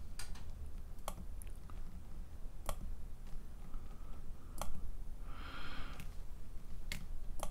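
Keys on the Amiga 1200's keyboard being pressed one at a time, about six sharp clicks spaced a second or two apart, over a low steady hum. No motor spin-up or head stepping is heard from the floppy drive: it is not responding to the test commands.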